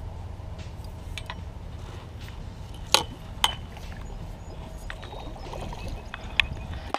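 A hooked fish being netted against a seawall: water splashing under a steady low rumble of wind on the microphone, and two sharp knocks about three seconds in, half a second apart, from the landing net's pole striking the metal railing.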